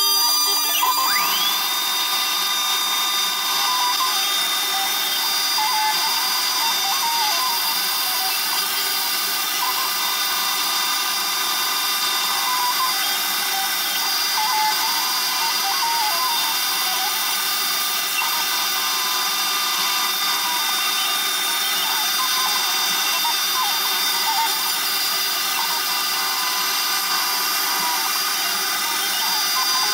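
A CNC router spindle is milling a knife handle scale, giving a steady high whine with the noise of the cut. About a second in, a vacuum cleaner starts with a rising whine and then runs steadily beside it, sucking up the chips at the cutter.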